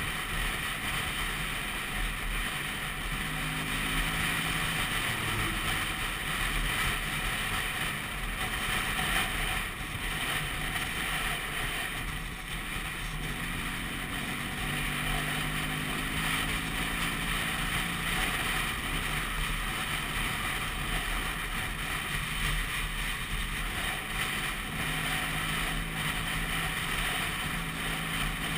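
Vespa PX200 scooter's two-stroke single-cylinder engine running on the move, under a steady rush of wind on the microphone. The engine's pitched note comes and goes in a few stretches as the throttle changes.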